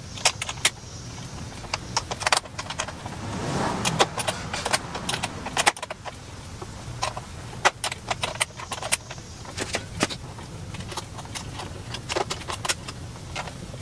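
Irregular clicks, taps and clinks of hands and a tool working loose the plastic tail fairing and its fasteners on a sportbike's rear end, with a longer scrape about four seconds in, over a low steady hum.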